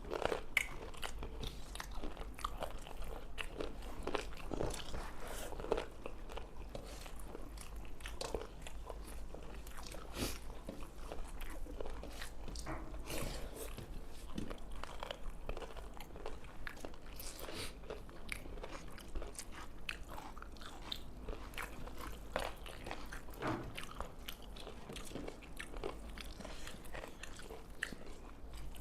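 People chewing and biting mouthfuls of rice and spicy pepper chicken, with many short crunches and wet mouth clicks.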